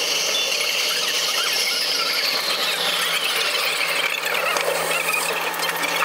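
Vancouver SkyTrain car, driven by linear induction motors, running on its guideway and braking into a station. A high whine falls steadily in pitch over the first few seconds as the train slows, over a constant low hum and rolling noise.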